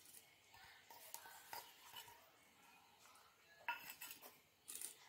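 Faint rustling and light taps as chopped fresh fenugreek leaves are dropped by hand into a stainless steel bowl, with one sharper tap against the steel bowl a little past halfway.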